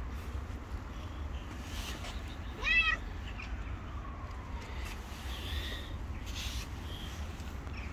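A domestic cat meows once, a short call about two and a half seconds in that rises and then falls in pitch, over a steady low rumble.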